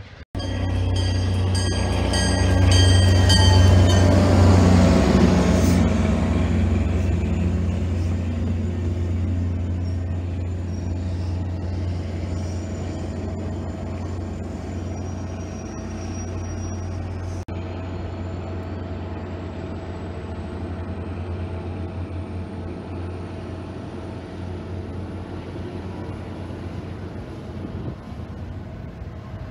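Diesel-hauled passenger train running through the station with a deep, steady rumble. It is loudest a few seconds in, with a repeated high ringing over that stretch, then settles to a lower steady rumble.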